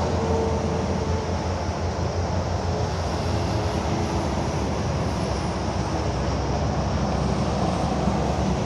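Dodge Ram's Cummins turbo-diesel inline-six engine idling steadily, with a low, even rumble.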